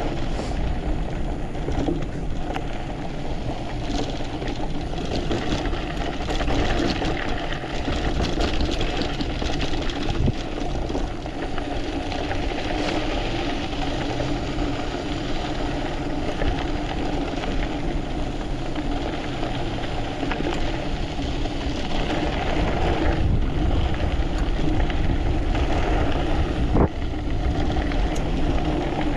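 Mountain bike rolling fast downhill on a loose dirt track: steady tyre rumble and gravel crunch with scattered rattling clicks from the bike, and wind buffeting the microphone.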